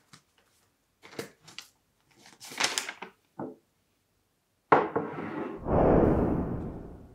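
Sheets of paper being handled and leafed through, rustling in a few short bursts. Then comes a sharp hit, followed by a loud rush of noise that swells and slowly fades away.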